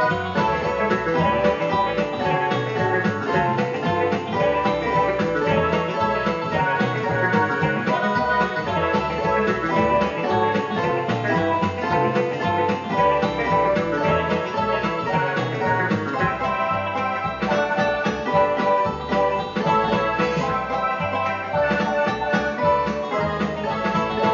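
Music led by a plucked guitar, continuous.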